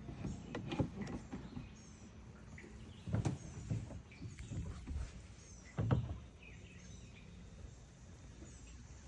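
A few dull knocks and handling sounds, the two loudest about three and six seconds in, with small birds chirping faintly in the background.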